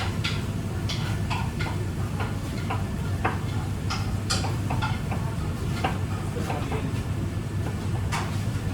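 Scattered light clicks and knocks of kitchen handling, dishes and utensils being moved, over a steady low hum.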